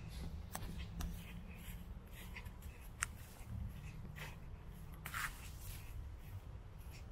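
Footsteps of someone walking on a paved garden path, light scuffs and ticks about twice a second, over a low steady rumble of wind on the microphone.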